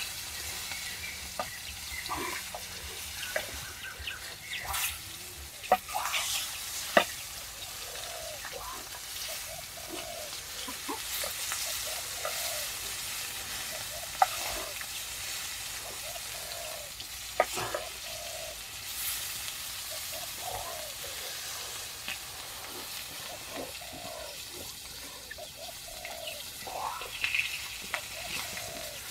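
Pork frying and sizzling in a pan, with occasional sharp knocks and scrapes of a utensil stirring it.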